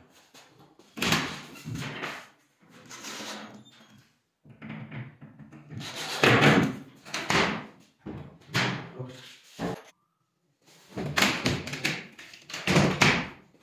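Wardrobe sliding door being slid along its track and knocked against its frame, about five runs of a second or so each.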